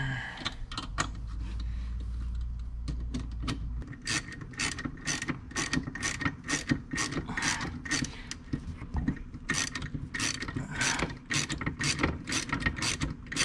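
Ratchet wrench with a 10 mm socket clicking in repeated back-and-forth strokes as it tightens the nut on the steering cable bolt. The clicks are sparse at first and become a steady quick run from about four seconds in.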